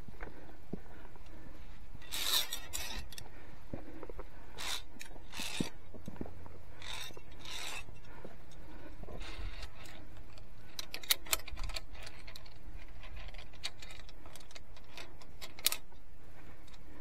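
A climber's hands, sleeves and gear scraping and rubbing against rock and a steel via ferrata cable, in short bursts, with a few sharp clicks about two-thirds of the way through and one more near the end.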